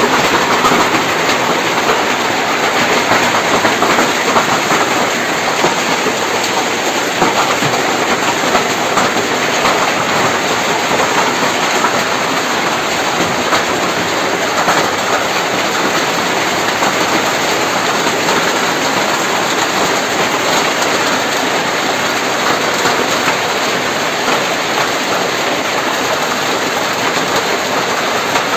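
Heavy hailstorm: hail pelting down in a dense, steady noise that never lets up.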